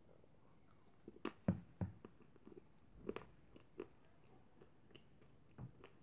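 Faint mouth sounds of someone chewing chocolate-coated ice cream with chocolate pieces in it: a scatter of small crunches and clicks, the loudest about a second and a half in.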